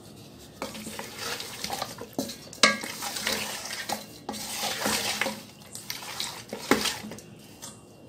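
Wooden spatula stirring raw chicken pieces in a metal pot, scraping and clattering against the pot's sides, with a few sharp knocks on the metal. The chicken is being mixed with salt and lemon juice for marinating. The stirring starts about half a second in and stops shortly before the end.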